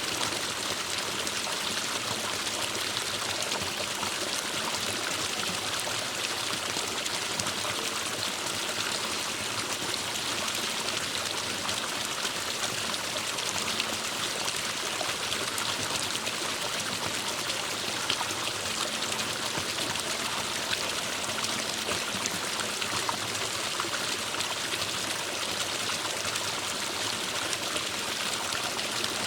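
Forest stream running steadily over rocks: an even, unbroken rush of flowing water with fine splashing and trickling.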